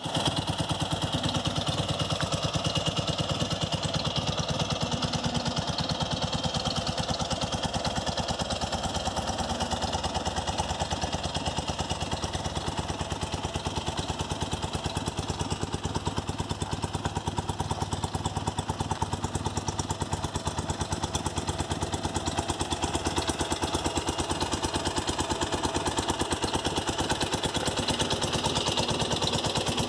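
BMW R45's air-cooled flat-twin (boxer) engine idling steadily, with an even, rapid firing pulse.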